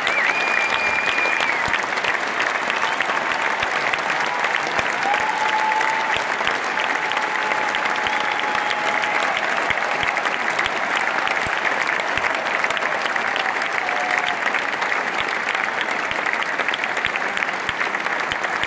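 Large concert audience clapping and cheering steadily, with a few long held calls standing out above the clapping.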